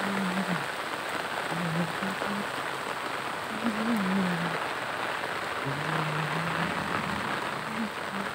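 Steady rain falling on a wet road and the vegetation beside it, an even hiss with no break.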